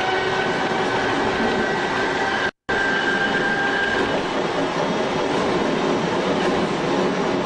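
Tobu 5700 series electric train running, its nose-suspended (tsurikake) traction motors and gearing giving a steady whine over the rumble of the wheels on the rails. The sound cuts out completely for a split second about two and a half seconds in.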